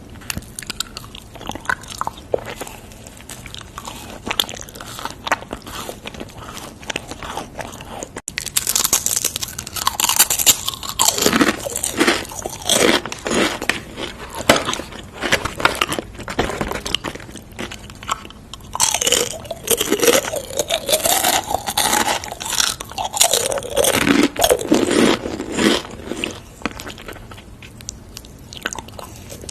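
Close-miked eating: crisp, crunchy bites and chewing, sparse at first, then dense crunching from about eight seconds in, with a short lull before a second run of crunching.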